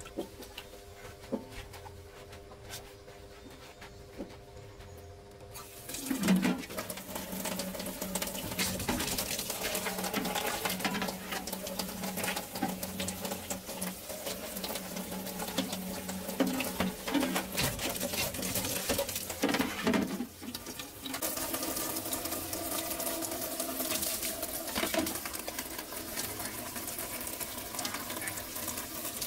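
Tap water pouring onto plates and splashing into a stainless-steel sink as dishes are rinsed by hand, starting about six seconds in, with a few knocks of dishware.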